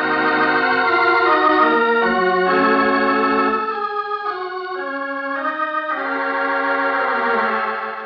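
Organ music bridge between radio-drama scenes: held chords with vibrato, shifting every second or so and fading out near the end.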